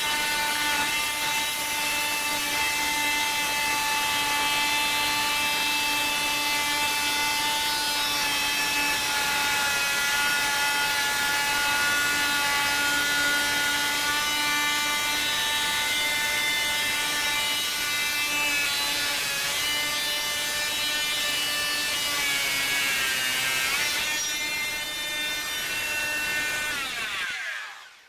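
Makita TM3010C oscillating multi-tool running, its blade cutting into the wooden subfloor along the wall: a steady high buzzing whine that wavers slightly as the blade works. Near the end it is switched off and the whine falls in pitch and dies away.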